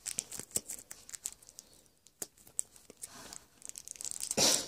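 Thin plastic packaging film crackling and tearing as it is peeled off a new phone, in scattered crackles with a louder rip near the end.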